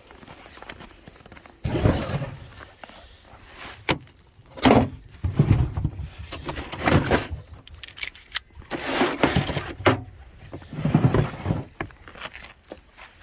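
Metal hand tools clattering and jangling in several short bursts as they are handled, with a wrench set aside and vice grips sought.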